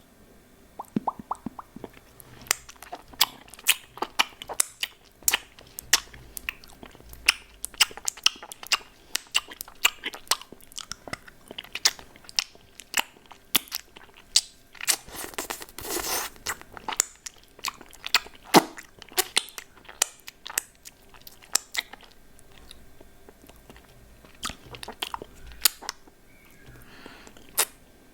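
Close-miked mouth sounds of a hard candy lollipop being sucked and crunched: a run of sharp clicks and cracks, with a denser stretch of crunching about halfway through.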